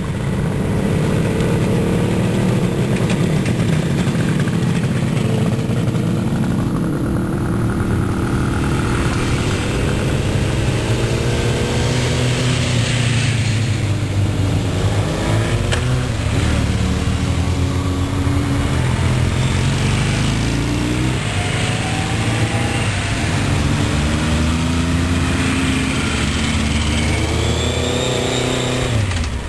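Motorcycle engines running steadily, then several bikes riding past one after another. Each pulls away with the engine pitch rising, several times in the second half.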